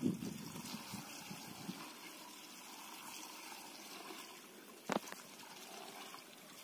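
Bijamrut seed-treatment liquid pouring in a steady trickle from a plastic jerry can onto turmeric rhizomes in a plastic bucket, soaking the seed rhizomes before planting. A single short knock about five seconds in.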